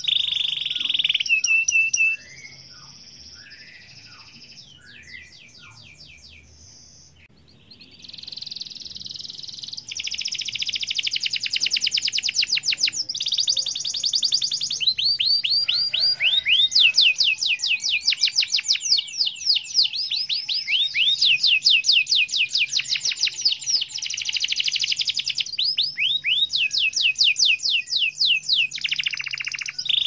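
Domestic canary singing a long, fast song of rapid rolling trills and quickly repeated falling whistles. The song drops to softer, sparser notes about two seconds in, then returns to loud, continuous trilling from about eight seconds on.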